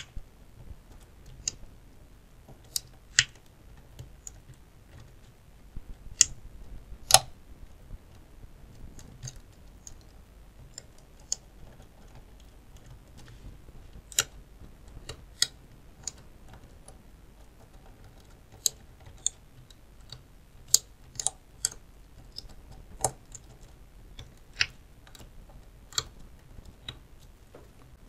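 Lock pick and pin tumblers clicking inside an Iseo F5 euro cylinder with five security pins, as a curved half-diamond pick works the pins under a tension wrench. Irregular sharp clicks, sparse at first and coming more often in the second half.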